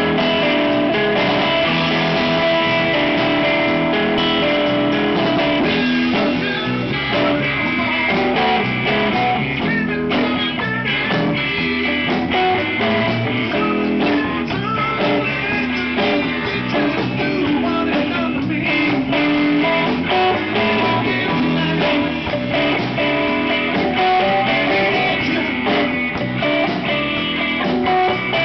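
A live band playing: a semi-hollow electric guitar to the fore over bass guitar and a drum kit, with no singing.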